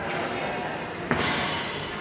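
Sparring in a gym: a sudden sharp noise about halfway through with a short hissing tail, over faint voices in the background.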